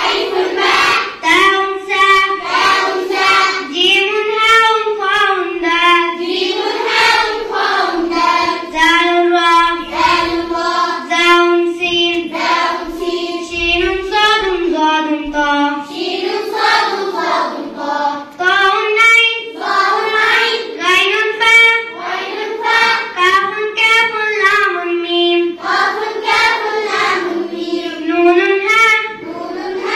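A child singing a melodic chant in short rising-and-falling phrases.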